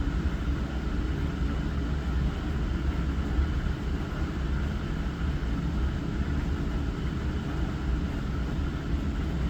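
Hava glass-front dishwasher running its wash cycle: a steady low pump hum under an even rush of spraying water.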